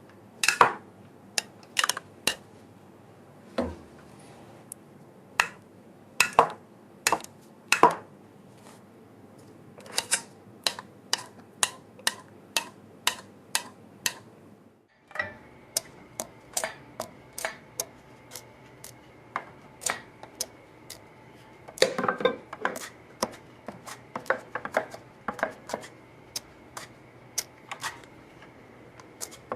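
Irregular sharp clicks and light knocks of metal lock hardware being handled and fitted, with faster clusters of clicks about two thirds of the way through.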